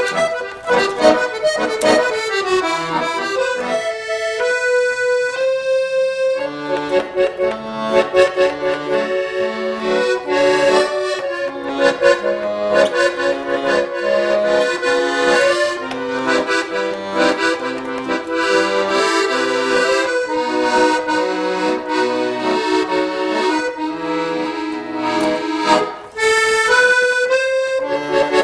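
Background music: a melody over a bass line that steps from note to note, with a held chord about four seconds in.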